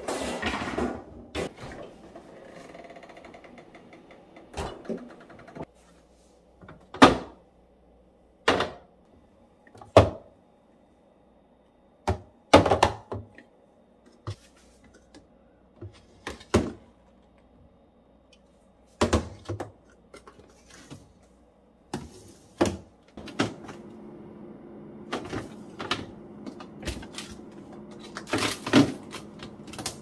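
Refrigerator doors and clear plastic storage bins and containers being handled on the fridge shelves: a series of separate sharp clacks and knocks, about a dozen. A low steady hum comes in about two-thirds of the way through.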